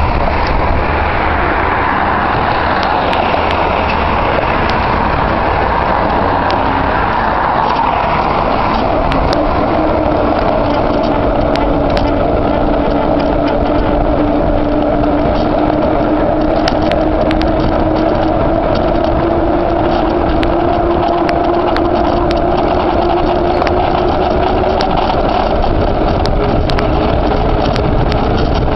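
A bicycle's knobby tyre rolling fast on asphalt beside traffic, heard from a camera mounted at the wheel: a steady loud rush of tyre and wind noise, with a humming tone that slowly rises in pitch through the middle stretch and scattered light ticks.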